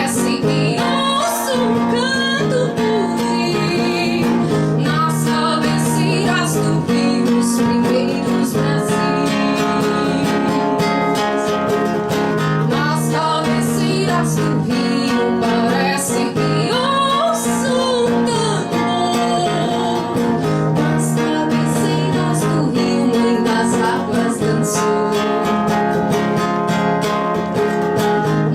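Live acoustic music: strummed acoustic guitar chords with a sliding melodic lead line over them, with no words.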